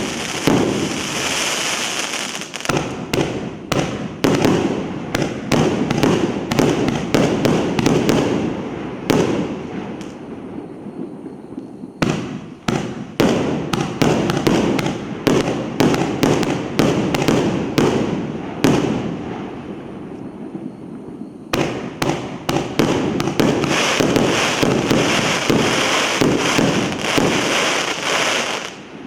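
A 200-shot, 1.5-inch consumer fireworks battery (Rusalut 'Kontrabanda') firing: a rapid, continuous string of launch thumps and aerial bursts. Dense crackling runs through the first few seconds and again near the end, when crackling effects break.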